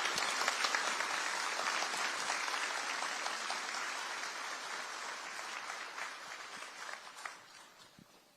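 Audience applauding in a school auditorium after a speech, steady for several seconds and then dying away with a few last claps near the end.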